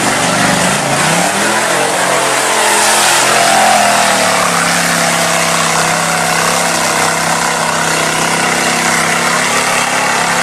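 Lifted mud truck's engine revving up hard off the start, then held at steady high revs at full throttle as it plows through a mud pit, over a constant heavy rush of spraying mud.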